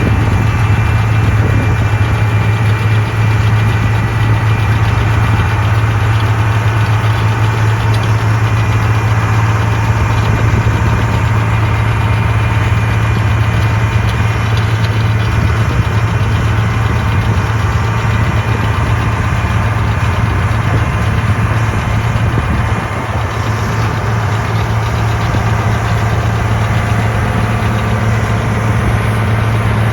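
Case IH Magnum tractor's diesel engine running steadily, pulling a Case IH RB455 round baler that is baling hay, with a strong low hum throughout.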